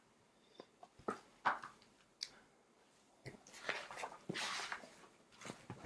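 Faint, scattered close-up clicks and rustles, with a short breathy rush about four seconds in.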